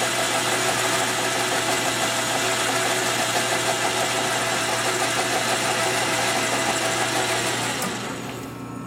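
A metal lathe running under power: a steady whir with a hiss over it, which winds down and stops about eight seconds in.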